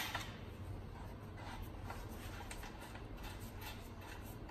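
Faint scattered clicks and scrapes of a threaded metal fitting being screwed finger-tight by hand onto the pump of a Wagner SF23 paint sprayer, with a sharper click at the very start, over a low steady hum.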